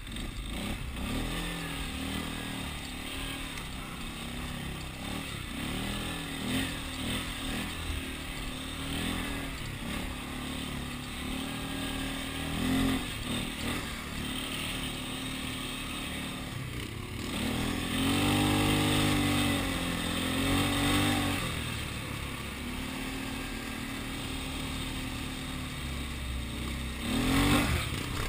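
Polaris Sportsman ATV's single-cylinder four-stroke engine revving up and down as it is ridden over rough trail. The revs rise in a louder, sustained burst about two-thirds of the way through, and climb again briefly near the end.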